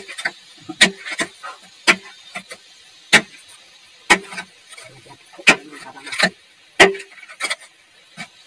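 Steel bar striking rock and packed earth by hand: about ten sharp blows, roughly one a second, some with a short metallic ring.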